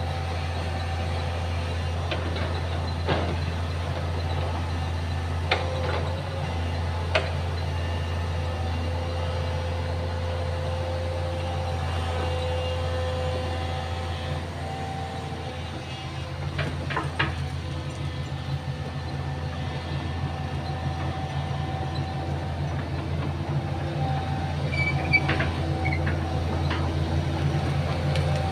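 Excavator's diesel engine running steadily, with a whine that shifts in pitch and a few sharp knocks.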